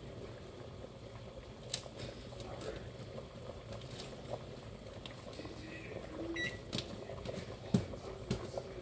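Stainless stockpot of water at a rolling boil, bubbling steadily with dry spaghetti just added, steam pouring off it. A few sharp clicks come through, the loudest near the end.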